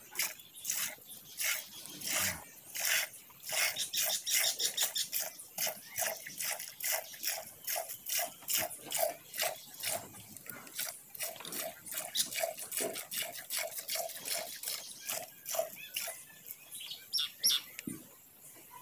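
A cow being milked by hand: rhythmic squirts of milk striking the milk in the container, about two to three a second, tailing off near the end.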